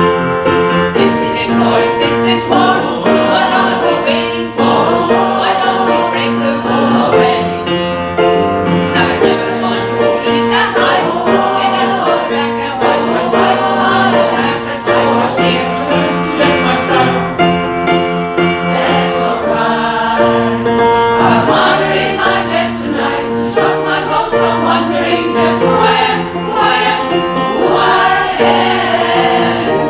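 Mixed choir of men and women singing in harmony with piano accompaniment.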